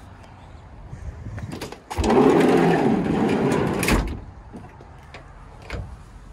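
The sliding side door of a 1968 Volkswagen bay-window Westfalia camper is unlatched and rolled open along its track. About two seconds in, a click starts a rolling rumble that lasts about two seconds and ends in a knock as the door reaches its stop.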